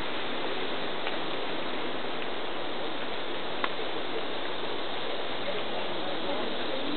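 Steady, even hiss of background noise, with a faint click about three and a half seconds in.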